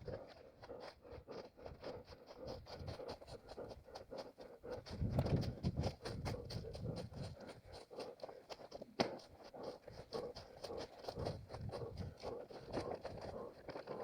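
Head-mounted camera picking up a running orienteer's quick, rhythmic footsteps over forest ground with scraping and rustling of clothing and undergrowth, and panting breath. A low rumble swells about five seconds in, and a single sharp click comes about nine seconds in.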